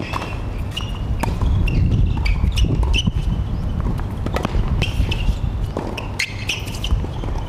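Tennis rally on an outdoor hard court: sharp racket strikes on the ball and ball bounces a second or so apart, with the players' footsteps, over a steady low rumble.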